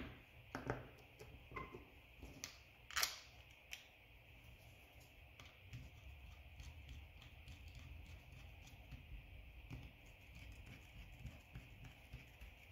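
Faint clicks and taps of a screwdriver and small metal screws on an outboard fuel pump body, the loudest about three seconds in. Then light, irregular ticking as the screws are turned in by hand.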